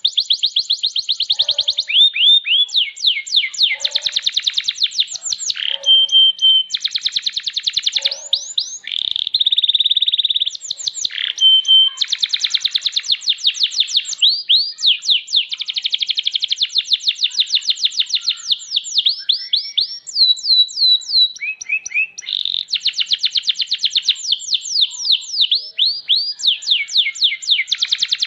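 Domestic canary singing a long continuous song of fast trills made of repeated sweeping notes, broken by a few short held whistles.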